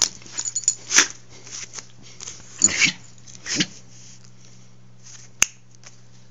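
A dog and a person's hand scuffling in play-fight on carpet: rustling and pawing in a few short bursts during the first four seconds, then quieter, with one sharp click about five seconds in.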